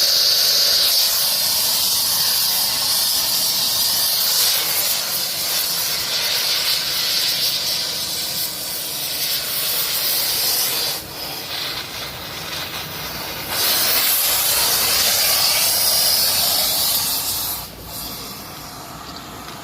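Loud steady hissing from rail thermit welding gear. It drops away about eleven seconds in, comes back two or three seconds later, and fades near the end.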